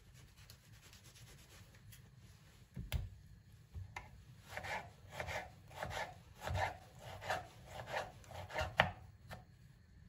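Kitchen knife dicing peeled tomatoes on a wooden cutting board: a single knock about three seconds in, then a steady run of about eight slicing strokes, each going through the tomato to the board, ending on a sharper knock.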